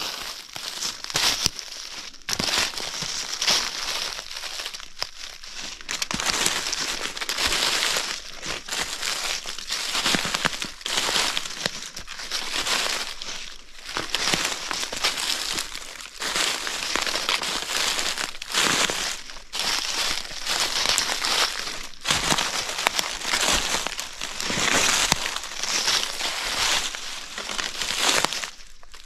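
Footsteps crunching through a thick layer of fallen autumn leaves at a walking pace, one step after another.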